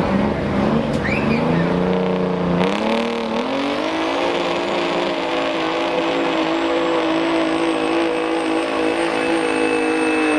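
Limited pro stock semi truck's diesel engine under full load pulling the sled, revving up over the first few seconds with a couple of brief dips in pitch, then holding high revs. A faint high whine joins about halfway through.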